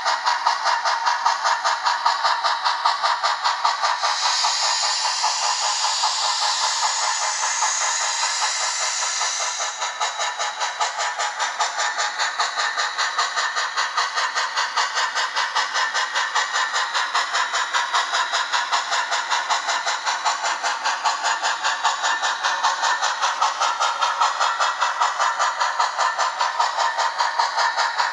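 Sound decoder of a Blackstone HOn3 C-19 model steam locomotive playing even, rapid exhaust chuffs through its small onboard speaker as the train runs. A steam hiss joins in from about four seconds in and stops near ten seconds.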